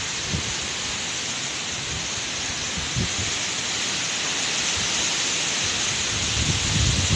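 Typhoon wind rushing through coconut palms and trees as a steady hiss, growing a little louder toward the end, with gusts buffeting the microphone a few times.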